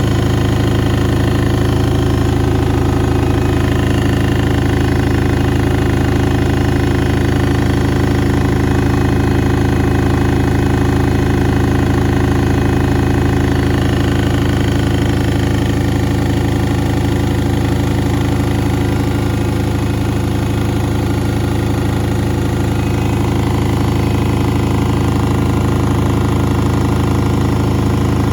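Washing machine running with a steady motor and drum hum that holds an even pitch and loudness throughout.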